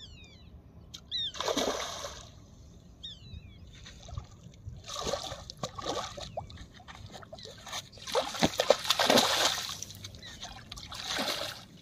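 A hooked carp thrashing at the water's surface, splashing in four bursts. The loudest and longest comes about eight to ten seconds in.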